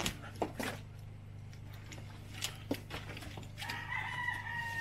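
A rooster crows once near the end, its long final note held for about a second and a half and falling slightly. Before it come scattered knocks as plastic barrels are shifted on a wooden pallet.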